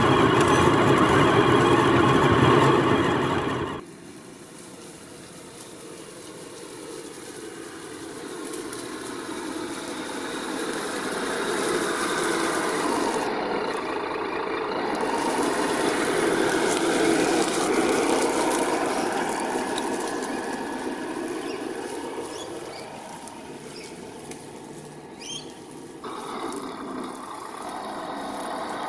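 HG P408 RC Humvee crawler's 550 brushed electric motor and gearbox whining as it drives, loud and rattly for the first few seconds with the microphone riding on board, then after a cut a quieter whine that swells and fades as the truck moves.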